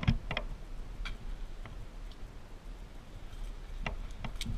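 Scattered light clicks and knocks of climbing gear, rope and metal hardware, being handled: a sharp pair right at the start, a few single ticks, then a cluster near the end.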